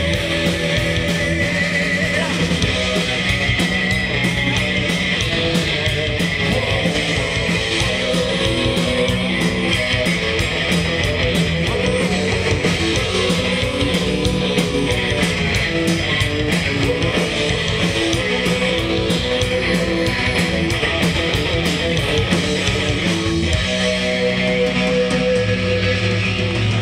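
Live rock band playing a song: electric guitar over a steady beat, loud and continuous, with the chord changing near the end.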